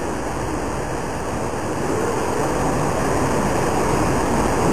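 Steady rushing noise, even and unbroken, with no clear pitch or distinct strokes.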